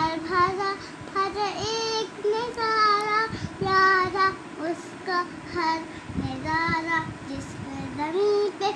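A young child singing a melody, holding drawn-out notes that slide up and down, with short breaks between phrases.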